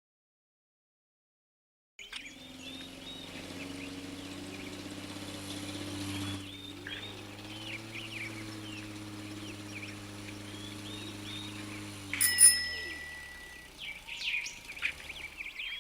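Birds chirping over a steady low hum, starting about two seconds in after silence. A sharp click with a short ring comes a little after twelve seconds, and the hum fades out soon after while the chirping goes on.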